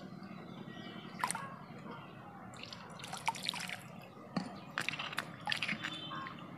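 Water splashing and dripping in a clay bowl as cut taro pieces are tipped in and rubbed clean by hand: a few short splashes, most of them in the second half.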